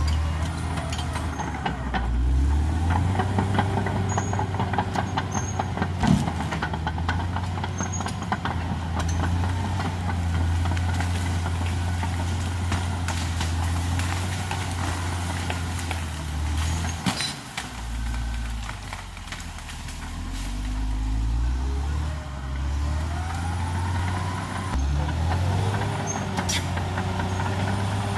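Caterpillar D6R XL bulldozer's diesel engine running hard while the dozer works, with frequent knocks and clanks. The engine note sags briefly about two-thirds of the way through, and a whine rises and falls near the end.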